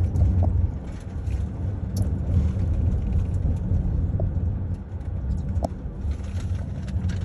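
Road noise inside a moving car: a steady low rumble of engine and tyres, with a few faint clicks.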